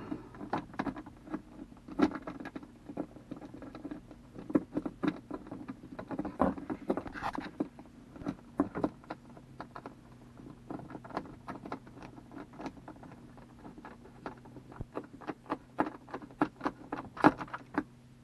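Hand screwdriver driving small screws into a metal CB radio mounting bracket: irregular clicks, taps and scrapes of metal on metal, over a faint steady low hum.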